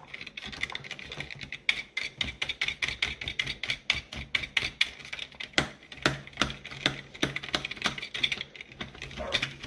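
Rapid, irregular clicking while a screw is undone from the plastic ball housing of a Dyson DC50 vacuum cleaner.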